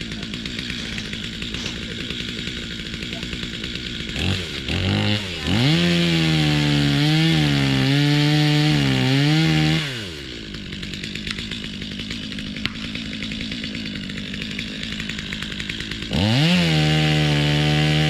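Gas chainsaw idling, blipped twice, then run at full throttle for about four seconds, its pitch sagging and recovering as it cuts into the trunk of an evergreen being felled. It drops back to idle and is run up again near the end.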